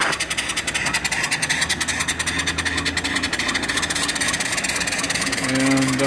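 Small single-cylinder vertical steam engine (1½-inch bore, 2-inch stroke) running on steam from a small fire-tube boiler: a fast, even exhaust beat over a steady hiss of steam.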